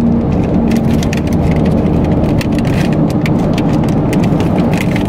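Plastic snack wrapper crinkling in quick, irregular crackles as it is handled and opened, over the steady drone of a car driving, heard inside the cabin.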